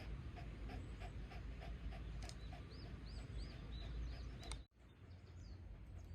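A dog's claws clicking on a hard floor, about three light ticks a second, with a small bird chirping a quick run of repeated notes. The sound cuts off abruptly about four and a half seconds in, leaving a quieter background.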